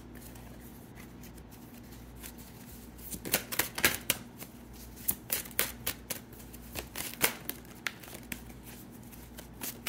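A tarot deck being shuffled by hand: a rapid, irregular run of crisp card clicks and slaps that starts about three seconds in.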